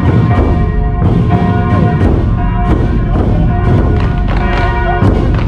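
Heavy drums beating in a busy, irregular pattern, over church bells ringing with long, held tones.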